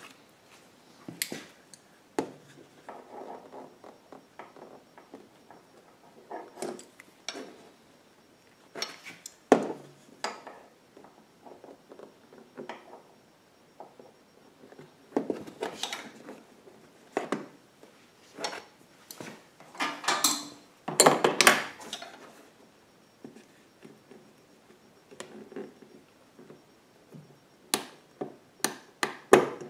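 Handling noise from fitting a nylon ratchet hose clamp onto a rubber fuel hose: scattered clicks, knocks and scrapes of plastic and metal. Near the end comes a quick run of sharp clicks as the clamp is ratcheted tight with pliers.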